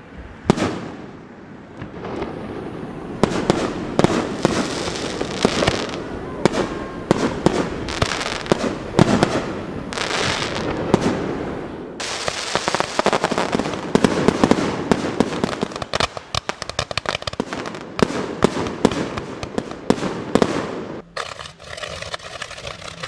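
Aerial fireworks display: a dense barrage of shell bursts with many sharp bangs over continuous crackling. The barrage thins to scattered crackles near the end.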